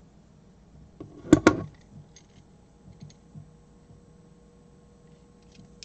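RJ45 crimping tool picked up and handled on a wooden tabletop: two sharp clacks in quick succession about a second and a half in, then a few faint ticks.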